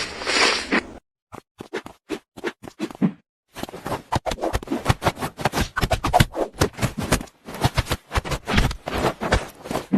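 A rapid, irregular run of sharp scratches and taps. It is sparse at first, breaks off briefly about three seconds in, then comes thick and fast.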